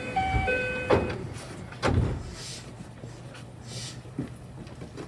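Inside the cab of a JR West 227 series train standing at a platform: an electronic chime of a few steady notes sounds for about the first second. Two thumps follow about a second apart, then two short hisses, over a low steady hum.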